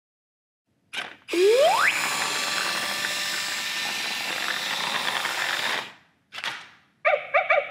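Sonomo robot dog toy's small geared motors whirring as it drives across a wood floor. A click about a second in, then a quick rising whine as the motors spin up, a steady whir for about four and a half seconds that cuts off suddenly, and short repeated electronic beeps near the end.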